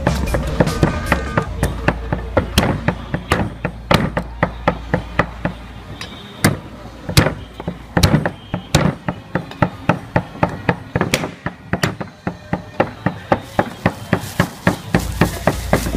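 Meat cleaver chopping raw meat on a thick round wooden chopping block: repeated sharp blade strikes into the wood, about two a second.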